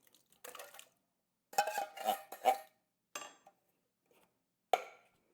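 Kitchen utensils knocking and clinking against a can and a bowl as canned crushed pineapple is added to the sauce: a soft knock, then a quick run of three about a second and a half in, then single knocks near three seconds and near the end.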